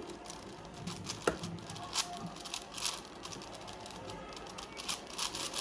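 Irregular plastic clicks and clacks of a stiff 5x5 Rubik's cube being turned by hand, one layer turn after another. It is hard to turn, not a speed cube.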